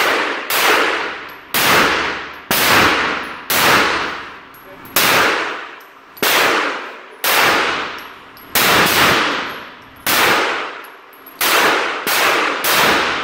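Springfield Armory XD 9mm pistol fired about fifteen times at a steady pace of roughly one shot a second, each shot ringing out in a long echo off the concrete walls of an indoor range.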